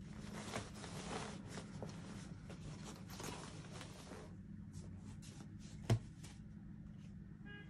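Fabric duffel bag and its contents rustling as items are pushed and packed into it, for about four seconds. Then a few light handling sounds and one sharp knock about six seconds in, as a water bottle is picked up off a wooden tray. A low steady hum runs underneath.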